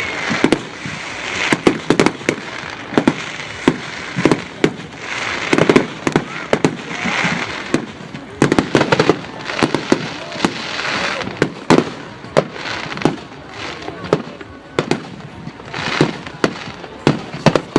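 Fireworks going off in a rapid, continuous barrage: loud aerial bursts and bangs, often several a second, over steady crackling.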